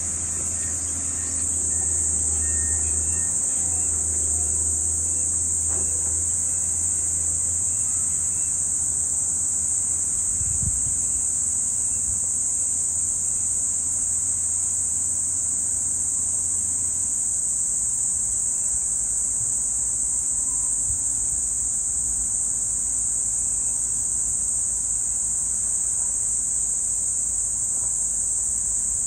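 Steady, high-pitched chorus of insects trilling without a break. A low hum sits underneath and fades out about halfway through.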